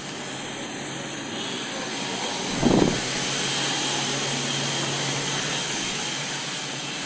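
Steady hissing, rushing noise that grows louder about two seconds in, with a faint low hum under it and one dull thump nearly three seconds in.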